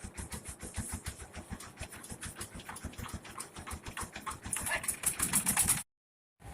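Engine of an old rice-hulling mill running with an even, rhythmic beat of about six to seven pulses a second. It grows louder and harsher in the last second or so, then cuts off abruptly.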